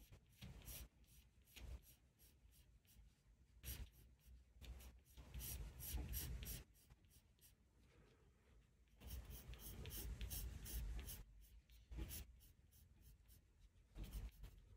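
Graphite pencil sketching on paper: a run of short separate strokes, with two longer stretches of steady back-and-forth drawing about five and nine seconds in.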